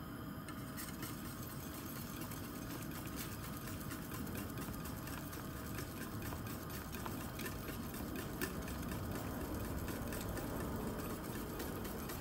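Wire whisk stirring through thick tomato soup in a stainless steel pot, with many light clicks and taps of the tines against the pot and a steady low swishing of the liquid.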